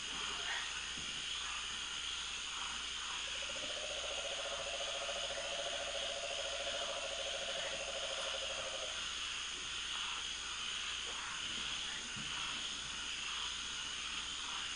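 Amazon rainforest evening chorus: a steady shrill hum of insects and frogs. A long, low, rapidly pulsed trill starts about three and a half seconds in and runs for about five seconds.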